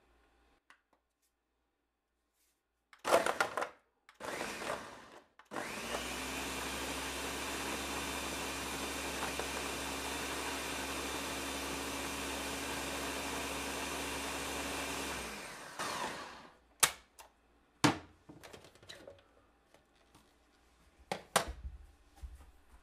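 Ninja countertop blender blending a smoothie: after two short noises it runs steadily for about ten seconds at a constant pitch, then winds down. A few sharp clicks and knocks follow near the end.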